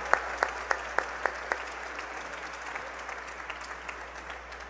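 Audience applauding and dying away. A few loud, evenly spaced single claps stand out in the first second and a half, then the applause thins and fades.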